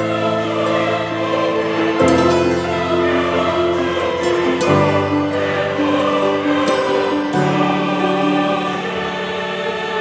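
Background music: choral voices singing over sustained chords that change every two to three seconds.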